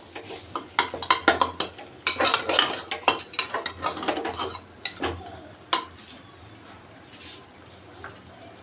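Metal ladle scraping and clanking against the sides of a metal pressure cooker while stirring and frying thick mutton masala, with the masala sizzling. The stirring stops about six seconds in, leaving a soft steady sizzle.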